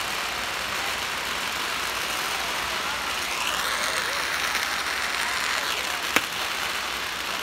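Strings of firecrackers crackling in a steady, rapid run of pops, with one single louder bang about six seconds in.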